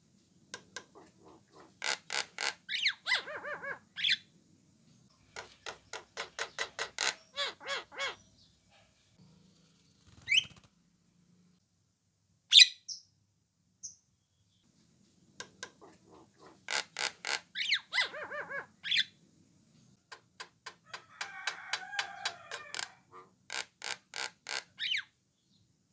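Javan myna (jalak kebo) calling: several bouts of fast, harsh rattling chatter of about two to three seconds each, broken by short sharp rising whistles. This is the characteristic call used to lure other mynas into answering.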